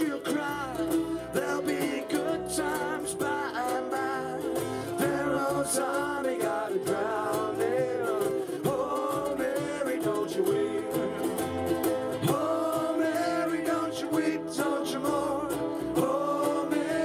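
Live ukulele band playing a song: several ukuleles strummed together, voices singing a melody, and a cajon keeping the beat.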